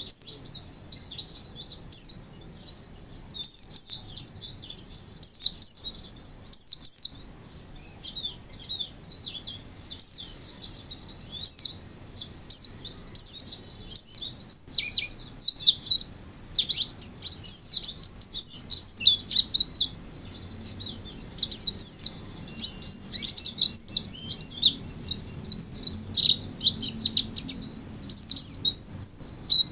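A Dakun white-eye (pleci) singing continuously, practising its wild-style "ngalas" song. The song is a high, steady trill with rapid sharp chirps and twitters over it.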